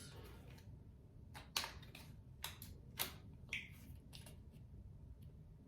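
A handful of light, scattered clicks and taps in a quiet small room, about seven over a few seconds.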